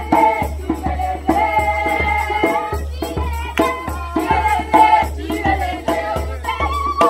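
Youth choir singing together in long held notes, with a hand drum beating a steady rhythm.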